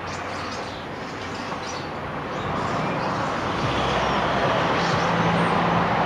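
A large flock of birds calling overhead: many short high chirps over a dense, steady din, with a low hum of road traffic underneath.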